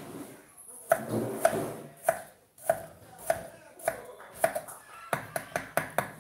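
Kitchen knife chopping food on a wooden cutting board: sharp, evenly spaced strokes about every half second or so, quickening to a fast run of chops near the end.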